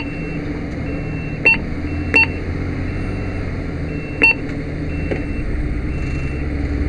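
Steady engine and road rumble inside a 2007 Toyota Tundra pickup's cab while it drives at speed. Three short electronic beeps cut through it, about one and a half, two and four seconds in.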